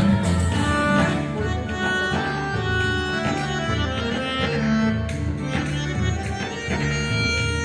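Instrumental background music from the show's soundtrack, with held melodic notes over a pulsing low bass line.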